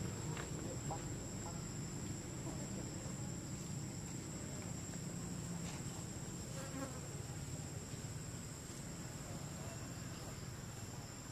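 Steady, high-pitched drone of an insect chorus, holding two even pitches without a break, over a low background rumble.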